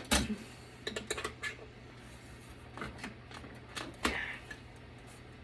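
Scattered sharp clicks and knocks, about half a dozen spread over a few seconds, of a hard drive and its metal bracket being pushed and pulled inside a desktop computer case. The drive is stuck and will not come free.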